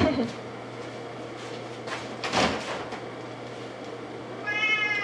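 A short knock right at the start and a brief sliding, rustling clatter about two seconds in, then a cat meows once near the end.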